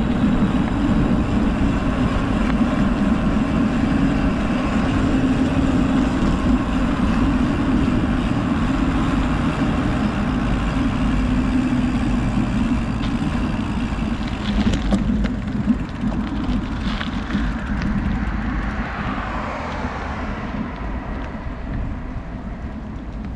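Steady rumble of a road vehicle in motion, slowly fading, with a falling whine near the end.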